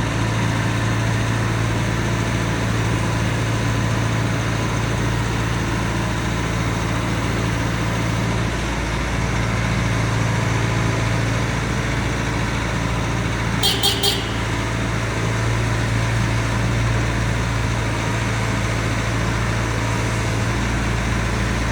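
A Bobcat S570 skid steer's diesel engine running steadily. About two-thirds of the way through there are three quick, sharp high-pitched sounds.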